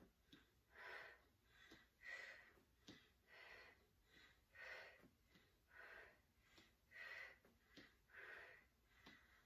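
A woman breathing out hard in short, even puffs, about one every second and a quarter, one on each rep of standing resistance-band glute kickbacks. Soft throughout, with faint ticks between the breaths.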